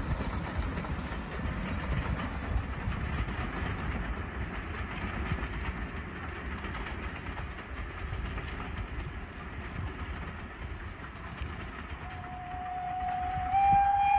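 GWR steam train running along the line with a steady rumble, then its steam whistle sounding near the end: one long whistle that comes in about twelve seconds in and grows loud, stepping up slightly in pitch.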